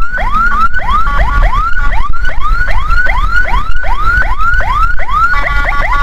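Ambulance siren on yelp, a fast run of rising whoops about three a second. Near the end a steady chord of held tones sounds over it, with a low vehicle rumble underneath.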